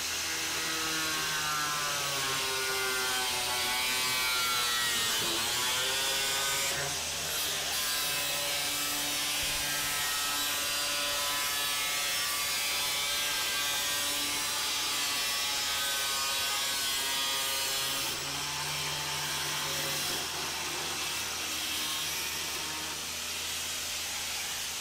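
Small corded angle grinder with a cut-off disc cutting through the fiberglass of an aircraft engine cowling, trimming it along a marked line: a steady motor whine over a gritty cutting hiss. The whine's pitch dips briefly about five seconds in, then recovers.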